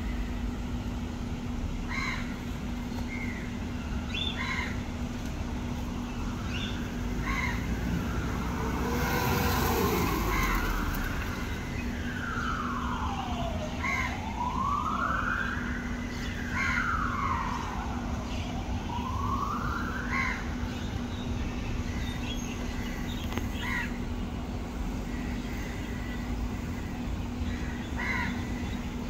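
An emergency vehicle siren wailing in slow falling and rising sweeps through the middle of the stretch, about three sweeps long. Crows caw in short calls now and then before and after it.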